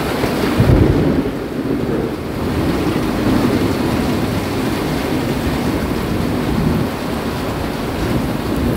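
Heavy rain falling steadily in a thunderstorm, with a low rumble of thunder about a second in that fades over the next second or two.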